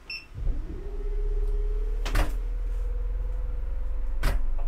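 Out Equip Pro 12V rooftop air conditioner (10,000 BTU) starting up. A short beep as its control panel is pressed, then a steady low hum with a thin tone that slowly rises in pitch as the unit spins up. Two sharp knocks come about two seconds in and near the end.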